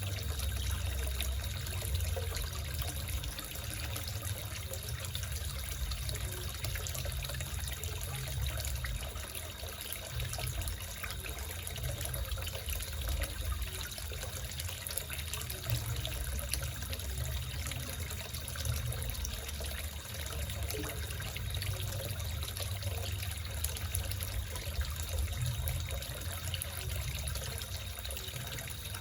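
Water steadily trickling and splashing into a small koi fish pond.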